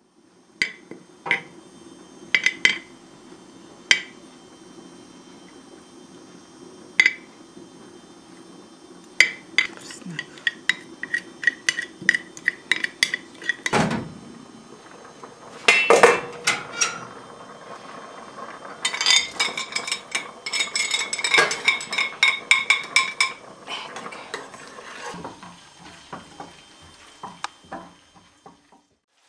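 Kitchen utensils clinking and scraping against dishes: scattered taps of a spoon on a ceramic bowl, a couple of heavier knocks about halfway through, then a quick run of ringing clinks lasting a few seconds.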